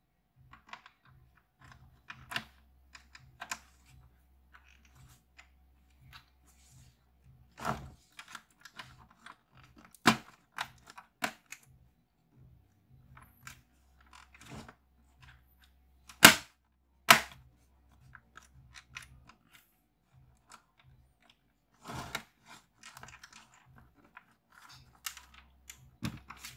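Plastic laptop parts being handled and fitted back together: irregular clicks, taps and knocks, with a few sharp loud snaps, the loudest two in quick succession past the middle.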